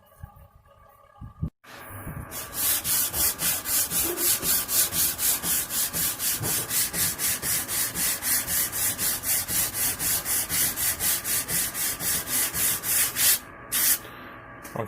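Sandpaper rubbed back and forth by hand over the wooden body of a bass guitar, in an even rhythm of about four strokes a second, starting about two seconds in and stopping shortly before the end.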